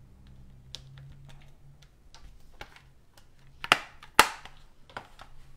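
Light clicks and rattles of a clear plastic stamp case being handled, then two sharp plastic clacks about four seconds in as the case is shut and put down.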